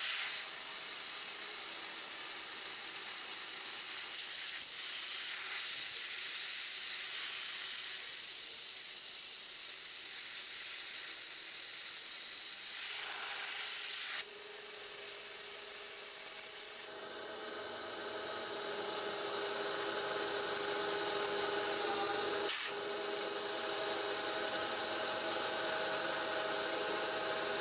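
CNC-converted 9x20 benchtop metal lathe running a programmed cut on a bearing adapter: a steady hiss over the machine's running noise, which cuts off abruptly about two-thirds of the way through, leaving a steady whine of the machine. A single click shortly after.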